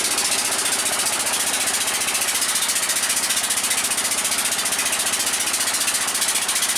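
Engine of a wooden river passenger boat running steadily under way, a fast, even chugging that holds the same pace throughout.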